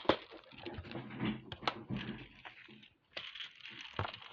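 Sharp clicks and light rattling of small hard objects being handled: bead containers and beads clicking as craft supplies are sorted through. A few louder clicks stand out, one right at the start and another about four seconds in.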